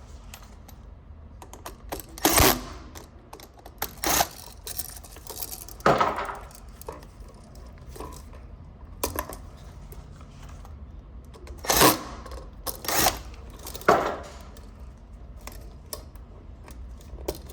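Scattered metallic clicks and clinks, about seven sharp ones spread irregularly, from hand-fitting an electrical receptacle into its wiring and box.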